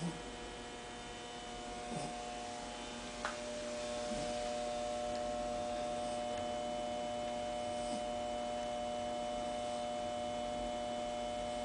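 Steady electrical hum made of several fixed tones, growing a little louder about four seconds in. A few faint, brief sounds stand out over it now and then.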